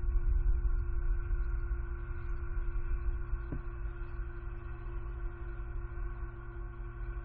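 Steady low wind rumble on an outdoor camera microphone, with a few held ambient-music tones over it; the whole gradually gets quieter.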